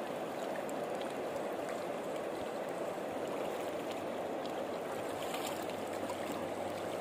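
Steady rushing of a wide river's flowing water.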